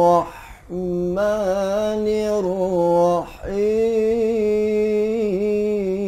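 A man chanting Quran recitation in the slow melodic tilawah style, holding long notes with small wavering ornaments. He breaks off briefly twice, about half a second in and about three and a half seconds in.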